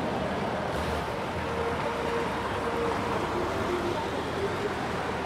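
Busy city street ambience: a steady wash of road traffic noise, with a few faint held tones that step in pitch partway through.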